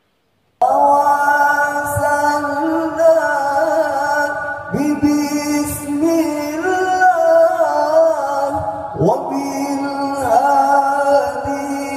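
Vocal outro music: a slow, chant-like sung melody with long gliding notes, starting suddenly about half a second in after a brief silence.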